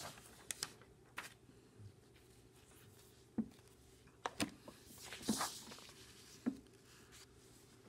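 Faint handling noise: several scattered light taps and rustles.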